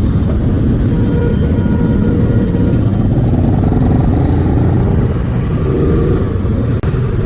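Loud rumbling wind and road noise on a helmet-mounted microphone while riding a motorcycle, with the engine running underneath. The sound drops out for a moment near the end.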